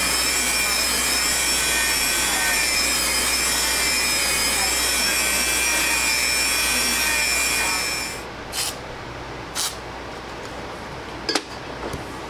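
Belt grinder running with a steady whine while a steel knife blade is ground on it. The grinding cuts off about eight seconds in, and a few short knocks and clicks follow.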